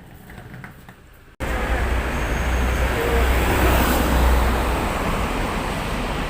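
Steady vehicle and road noise with a deep rumble, starting abruptly about a second and a half in after a moment of faint quiet sounds.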